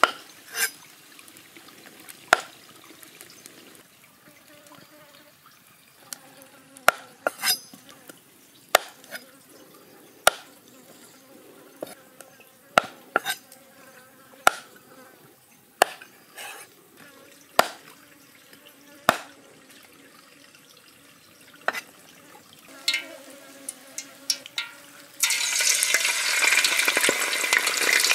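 Kitchen knife chopping snake meat on a wooden stump block, one sharp knock every second or two. About three seconds before the end the pieces go into hot oil in a steel wok, and a loud sizzle of deep frying starts suddenly.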